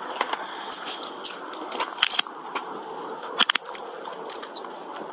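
Scattered sharp metallic clicks and rattles of handcuffs and duty gear being handled, with clothing rubbing close to the body-worn camera. The clicks bunch up about a second in and again past the three-second mark.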